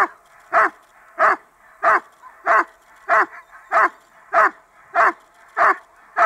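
A Doberman barking steadily at a bite-suited helper, about ten loud barks at an even rhythm of a little under two a second. This is the bark-and-hold of IGP protection work, with the dog sitting in front of the helper and guarding him.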